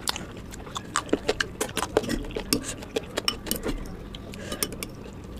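Metal spoon clinking and scraping against a glass bowl as curry is scooped and stirred: a quick run of sharp little clinks and ticks.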